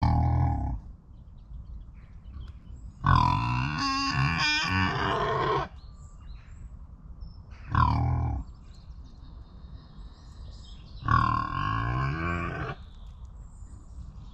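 An animal calling repeatedly: four loud calls a few seconds apart, some falling in pitch, the longest lasting about two and a half seconds.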